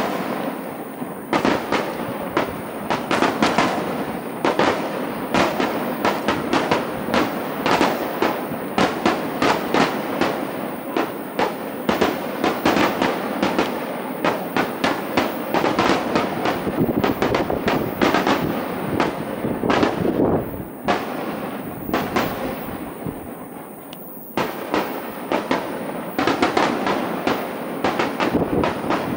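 Aerial firework shells bursting in a rapid barrage, many bangs in quick succession and overlapping, with a short lull about three-quarters of the way through before the bangs pick up again.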